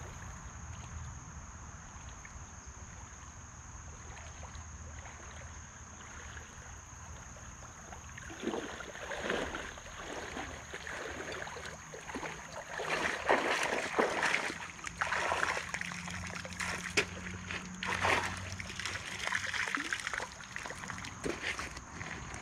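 Legs wading through a shallow creek, splashing with each step, beginning about eight seconds in and getting louder as the wader comes close. A steady high-pitched insect drone runs underneath.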